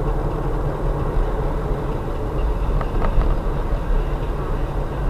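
Steady low rumble of a car driving, engine and road noise heard from inside the cabin, with a couple of faint clicks about three seconds in.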